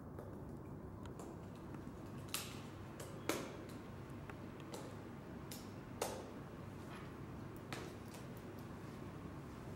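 Small metal parts of a SMOK Micro ADC 2 clearomizer clicking and tapping as they are handled and turned in the fingers: a few sharp clicks, the loudest two about three and six seconds in, with fainter ticks between.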